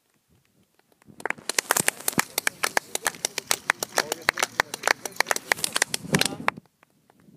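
Dense crackling and clicking on the recording device's microphone, many sharp clicks a second, that starts about a second in and stops abruptly near the end.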